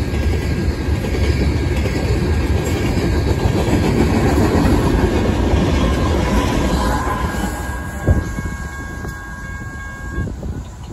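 Freight train rolling past with wheels clattering on the rails, its rear distributed-power locomotives, GE ES44C4 diesels, going by. The rumble fades away once the last unit has passed, with one sharp clunk about eight seconds in.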